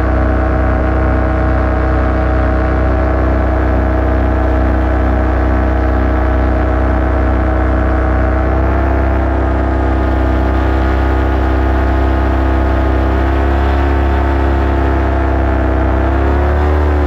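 Paramotor engine and propeller running steadily at cruise. The pitch wavers slightly up and down near the end as the throttle changes.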